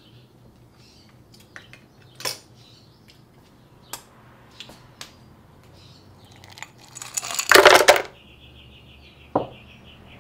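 Half a cup of ice cubes tumbling into a blender jar on top of frozen fruit, in one loud clatter about seven to eight seconds in. A few light clinks come before it and a single sharper clink follows.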